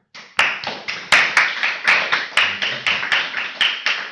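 A small group of people applauding, with separate claps distinct, starting just after the start and beginning to die away near the end.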